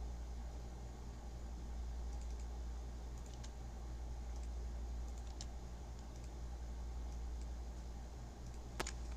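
A few faint, scattered clicks from a computer keyboard and mouse over a steady low hum.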